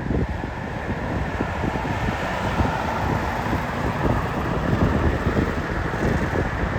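Wind buffeting the microphone, a steady low rumble with irregular gusts.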